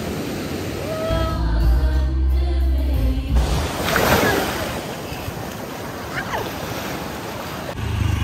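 Sea surf washing in, mixed with music, and a low drone for the first few seconds.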